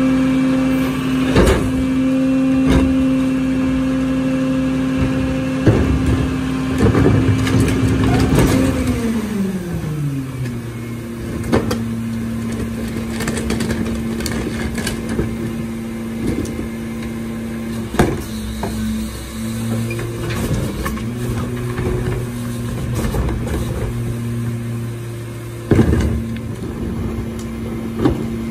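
Mack LR garbage truck engine running at raised speed while the Leach Alpha III rear-loader packer works, then winding down to a lower idle about nine seconds in. Knocks and clatter of refuse carts being emptied into the rear hopper come throughout.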